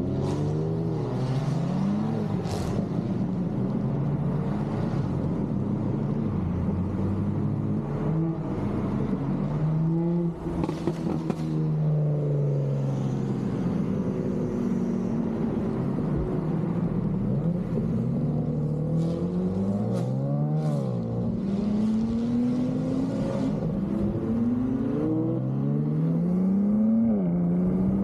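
BMW car engine accelerating hard and revving, its pitch climbing and dropping back again and again as it changes gear.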